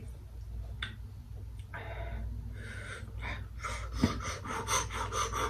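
A woman breathing hard through her mouth, a few heavy breaths and then quick panting that starts about three and a half seconds in, from the burn of a ghost pepper chip. A single sharp knock about four seconds in.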